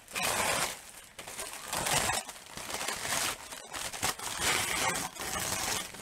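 Coated tissue paper crinkling and rustling as it is handled, in several irregular bursts.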